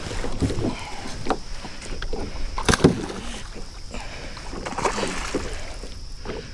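Water sloshing against a plastic kayak, with irregular knocks and clatter from the hull and gear as a hooked fish is fought from the boat, the sharpest knock about three seconds in.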